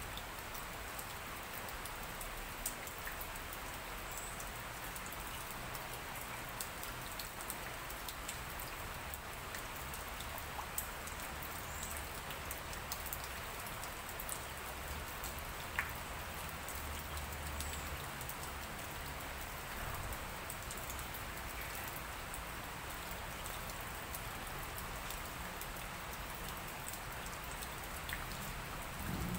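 Light rain falling on trees and leaves: a steady hiss with scattered individual drops ticking.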